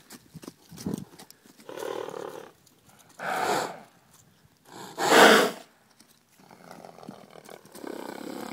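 Horses snorting and blowing: a few short, breathy blasts, the loudest about five seconds in.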